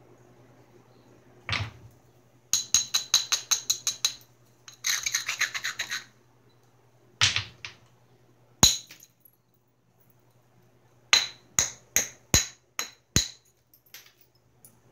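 Flint knapping: a round hammerstone striking and working the edge of a hand-held Georgetown flint biface. A quick run of light clicks comes first, then a short grating rub, then single sharp knocks. Near the end there is a string of about six sharp strikes, roughly two a second.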